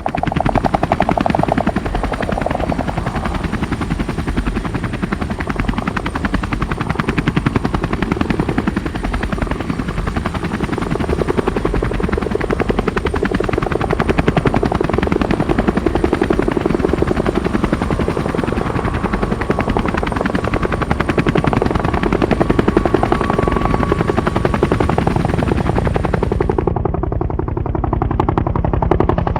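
Bell UH-1H Huey helicopter flying, its two-bladed main rotor beating in a steady, rapid chop. Near the end the sound turns duller as the high end drops away.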